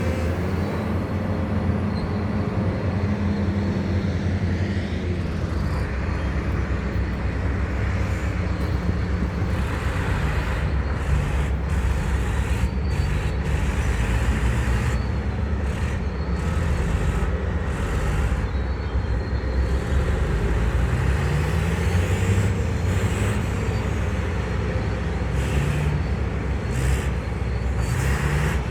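Hitachi 870 excavator's diesel engine running steadily with a deep rumble, with short hisses now and then.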